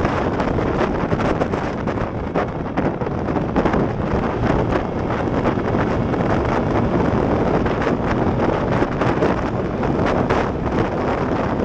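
Wind rushing over the microphone in frequent gusts as a Yamaha Mio Sporty 115 cc scooter is ridden at speed on a top-speed run, with the engine and road noise mixed in underneath.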